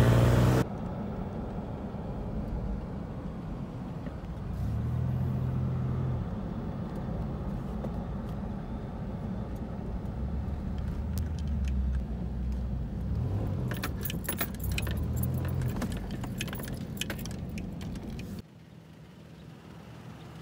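Engine and road noise inside a 3rd-generation Toyota 4Runner's cabin as it drives down a sandy beach track, with clusters of rattling clicks over the bumps near the end. It cuts to a quieter outdoor hum for the last couple of seconds.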